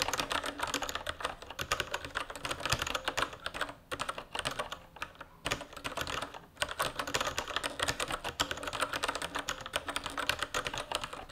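Typing on a Kinesis Advantage2 ergonomic keyboard with brown mechanical switches: a fast, continuous patter of key presses that is not crisply clacky, broken by a few short pauses midway.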